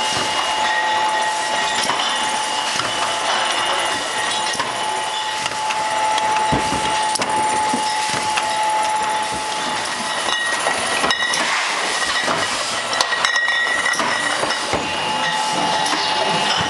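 Automatic wine bottling and labeling machine running: a steady mechanical whir and rattle with a steady whine that fades about halfway through. Sharp clinks of glass bottles come through in the second half.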